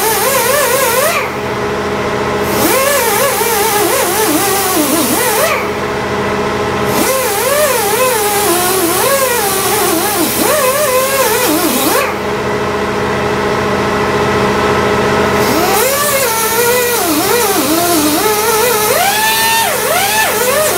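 Pneumatic die grinder with an abrasive disc scuffing the deck of a cast iron LQ4 engine block, giving a high hiss that stops three times, the longest for about three seconds past the middle. Background music with a sliding melody plays throughout.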